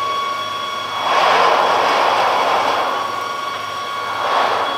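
Steady machinery hum from a large berthed car ferry, a constant drone with several fixed tones, overlaid by a louder rushing noise that swells about a second in and again briefly near the end.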